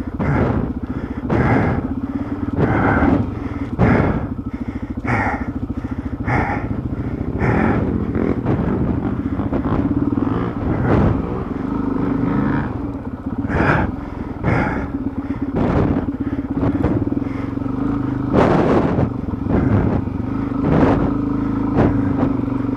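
Dual-sport motorcycle engine running and being revved up and down through mud, with frequent knocks and clatter, about one a second, as the bike bounces and slides over the rough trail.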